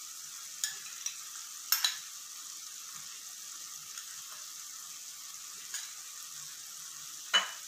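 Chopped onion and tomato masala frying in oil in a kadai, with ground spices and salt just added: a steady sizzle with a few sharp clicks now and then, the loudest near the end.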